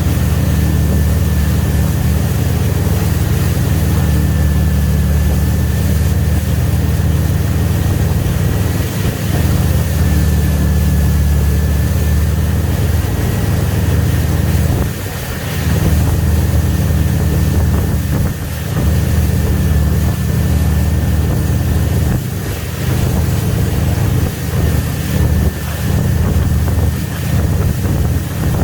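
Wakesurf boat's engine running steadily under way: a deep, continuous low rumble with a thin steady whine above it, and wind buffeting the microphone.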